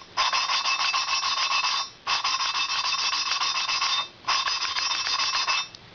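Valve lapping in a Harley-Davidson Evolution Sportster 1200 cylinder head: the valve is spun back and forth on its seat with a hand lapping stick, and the valve face grinds against the seat through cutting compound, seating the valve. The grinding is a fast gritty rasping chatter that comes in three spells of about two seconds each, with brief pauses between them.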